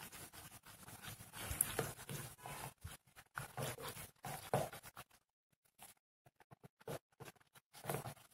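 A spoon stirring a thin creamy mixture in a plastic bowl: irregular scraping against the bowl and sloshing of the liquid. After about five seconds it thins out to scattered short scrapes and taps.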